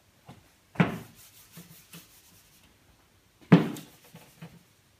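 Sponge eraser wiping marker off a whiteboard: scuffing rubbing strokes with small knocks, and two loud thumps against the board, about a second in and again about three and a half seconds in.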